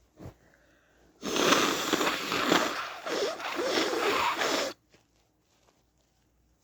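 A person blowing their nose: one long, noisy blow of about three and a half seconds that eases briefly halfway through, after a short sniff at the start.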